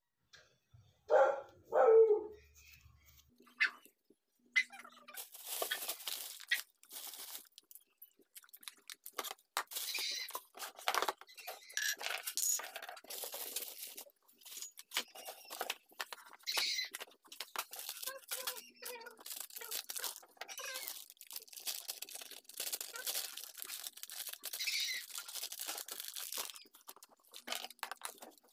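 Plastic bags rustling and small objects clicking and knocking as things are pulled out of a crowded cabinet shelf, irregular and continuous after the first few seconds. Near the start, two short, loud animal calls about a second apart stand out above it.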